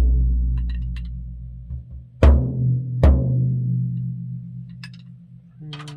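Low Tama drums with Evans heads struck twice, about a second apart, each hit ringing on in a long, low decay; the ring of earlier hits is still fading at the start.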